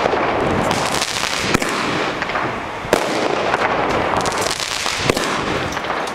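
Fireworks bursting overhead: a few sharp bangs, one every second or two, over continuous dense crackling.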